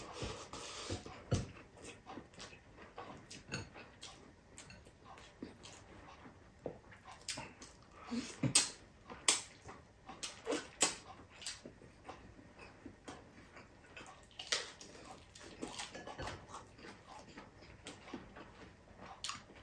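Close-miked eating sounds: a man chewing mouthfuls of rice and crispy fried milkfish, with irregular wet smacks and sharp clicks, loudest around the middle.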